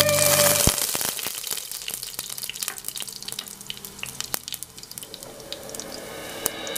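Chopped garlic sizzling in hot oil in a pot, a steady hiss with many small crackles, loudest as it drops in and dying down over the next few seconds.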